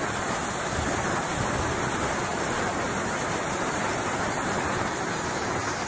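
Pressure washer spraying a high-pressure jet of water onto a driveway: a steady hiss of spray.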